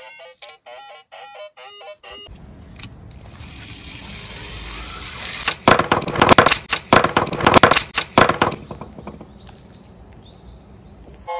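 Die-cast toy police car rolling down a sloped wooden board, its wheels making a rising hiss, then about three seconds of loud clattering as it tips over and tumbles onto its side. A quick beeping music tune plays for the first two seconds.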